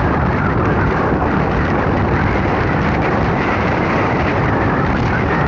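Loud, steady rushing wind and road noise from a vehicle driving through a severe thunderstorm, with no distinct hail strikes.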